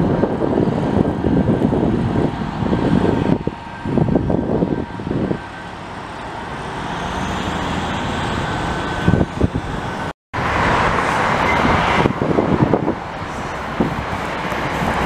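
Highway traffic noise: cars and trucks passing, a steady mix of tyre and engine sound. The sound cuts out completely for a moment about ten seconds in, then the traffic noise resumes.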